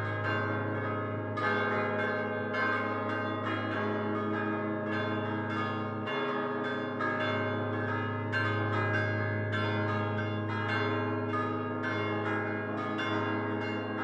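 Church bells cast by Prospero Barigozzi in 1928, hung fixed and rung by swinging the clappers by hand in a solemn peal. Strikes come about twice a second, overlapping over a deep steady hum.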